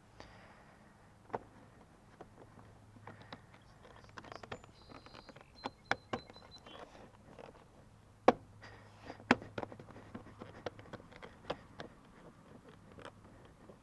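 Plastic body panels and their push-in fasteners being pressed back into place on a Suzuki Burgman 400 scooter: a run of irregular sharp clicks and knocks, the loudest a little past eight and nine seconds in.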